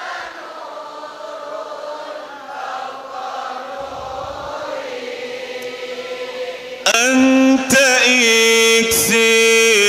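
Islamic devotional singing (sholawat): for the first seven seconds a congregation sings softly together, then about seven seconds in a single amplified male voice comes in loudly with long held, ornamented notes.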